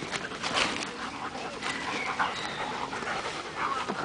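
Dogs panting hard while they run and play-wrestle, with short noisy breaths and scuffling.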